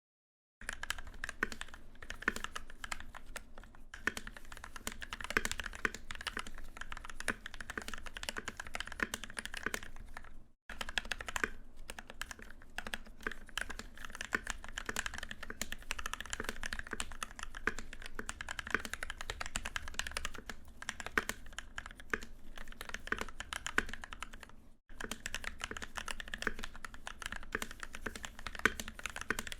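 Fast typing on a custom NK65 Entry Edition polycarbonate mechanical keyboard with lubed and filmed Gateron yellow switches: a steady stream of soft keystrokes, many a second, stopping briefly twice.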